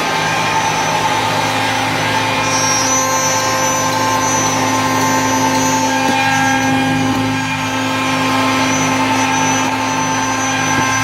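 CNC wood router running, a steady loud machine noise made of several held whining tones over a rushing hiss, with a higher whine coming in about two and a half seconds in.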